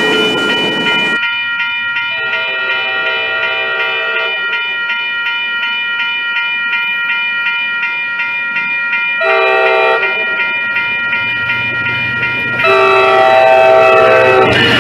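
A grade-crossing bell rings steadily while an approaching MBTA commuter train sounds its horn: one long blast, a short one, then another long one near the end as the train's rumble builds. At the very start, the noise of a passing train cuts off abruptly.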